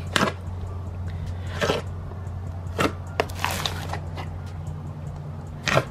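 Thick, glossy pink slime being pressed and stretched by hand, giving a handful of short sticky pops and squelches, with a cluster of them in the middle. A steady low hum runs underneath.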